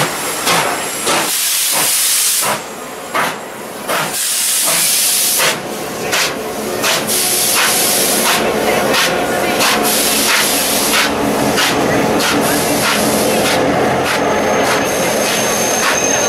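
R class steam locomotive hissing steam in loud bursts with short breaks, then a steadier train running noise. A thin high tone sets in near the end.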